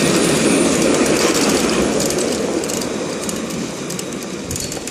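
A noisy bicycle rattling as it is ridden over the street, loudest at the start and easing off slowly.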